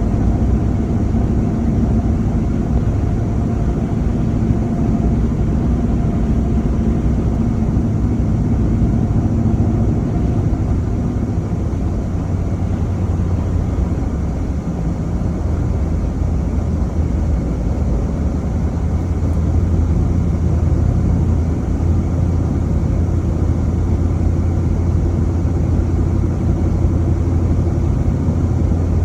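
Vehicle driving at steady speed: a constant low rumble of engine and tyre noise, with a faint hum that fades out about eleven seconds in.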